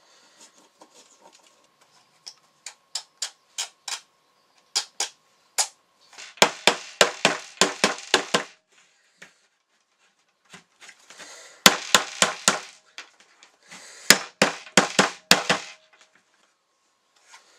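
Ratchet socket wrench clicking as it is worked to loosen a fitting on a Truma Therme water heater's plastic tank: scattered single clicks, then three quick runs of several clicks a second.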